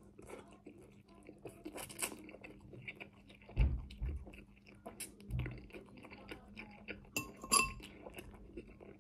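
Someone eating noodles with a metal fork from a ceramic bowl: soft chewing and slurping, with small clicks of the fork against the bowl and a sharper clink a little after seven seconds.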